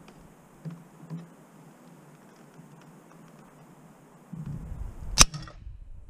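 A single shot from an FX Crown .25 PCP air rifle: one sharp crack with a brief ringing tail, about five seconds in. Gusty wind rumbles on the microphone around it.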